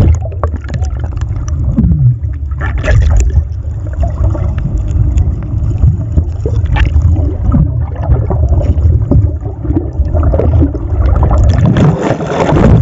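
Muffled sloshing and low rumbling of water around a submerged camera, with scattered knocks and splashes.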